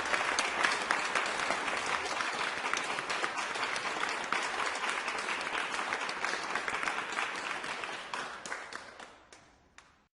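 A crowd applauding with cheers, a dense steady patter of many hands clapping that thins out about eight seconds in to a few last scattered claps and stops.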